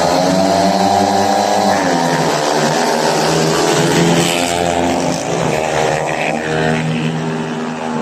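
Several speedway motorcycles, 500 cc single-cylinder methanol engines, at full throttle in a race. Their pitch rises and falls as the riders open and close the throttle.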